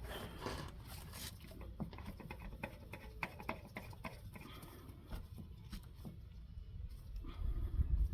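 Scattered small clicks and taps of hands handling oil-change parts and tools under the truck, with a low rumble building near the end.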